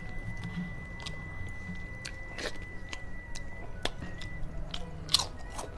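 Close-up eating sounds of a person chewing a mouthful of rice and fish, with scattered sharp mouth clicks and smacks, the loudest a little after five seconds in. A faint steady high tone runs behind.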